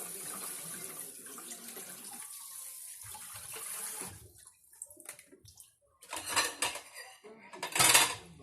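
Tap water running while a lobster is rinsed under it, fading out about four seconds in. Then come two short, louder bursts of splashing, the second near the end being the loudest.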